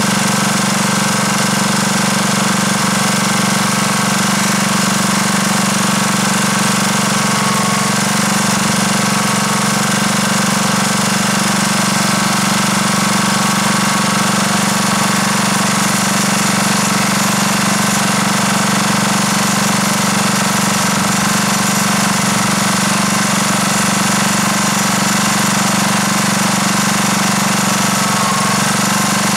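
The small gasoline engine of an Airlessco SureStripe 3650 airless line striper running steadily at an even speed.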